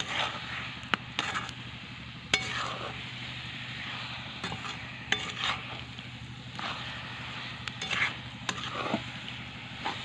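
A spoon stirring and scraping wet grated coconut and sugar in a metal pan, in uneven strokes about every second, with a few sharp clicks and a faint sizzle. The sugar has released its water and is turning to syrup.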